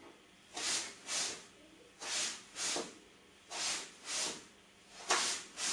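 A man shadow-boxing cross punches, breathing out sharply in time with them: four pairs of short hissing breaths, each pair about half a second apart and the pairs about a second and a half apart.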